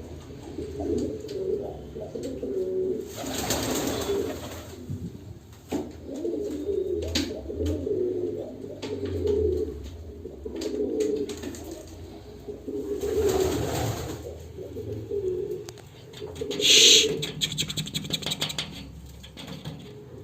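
Domestic pigeons cooing over and over in low warbling phrases. Two short rushes of noise come at about 3 and 13 seconds in, and one loud sharp sound comes near the end.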